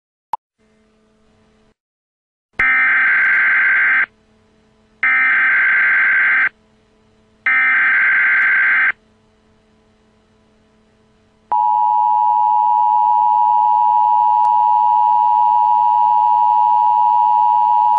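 Emergency Alert System message header: a click, then three bursts of SAME digital data screech, each about a second and a half long with short gaps between them, then the steady two-tone EAS attention signal starting about eleven seconds in. This sequence marks the start of a new emergency alert.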